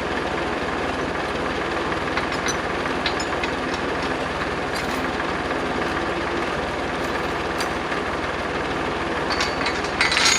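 Tractor engine running steadily at a constant speed, with a few light clinks.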